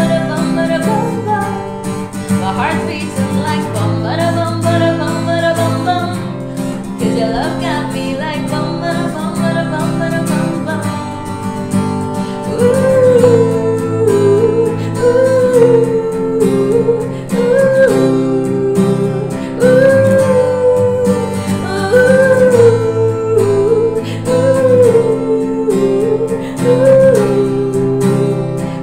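A woman singing a song live, accompanied by a strummed acoustic guitar. About twelve seconds in, her voice grows louder and repeats a short rising-and-falling phrase every couple of seconds.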